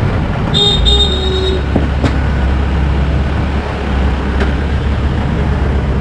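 A steady low motor hum that starts abruptly under a second in, with a short high tone just before it and a couple of faint clicks.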